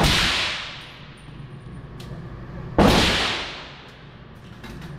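Handgun shots in an indoor range: one just as it begins and another about three seconds in, each sharp crack ringing off in the room's echo for about a second. A few faint ticks fall between them.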